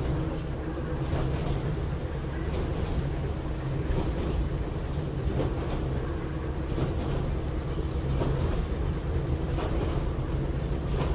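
Kambara Railway Moha 31 electric railcar running, heard from inside the car: a steady rumble and hum, with occasional clicks of the wheels over rail joints.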